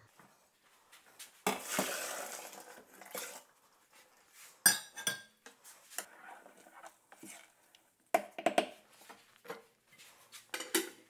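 A wooden spoon stirring and knocking in a large aluminium stockpot of mash, with scattered knocks and clatter and one sharp, ringing metal clank about halfway through.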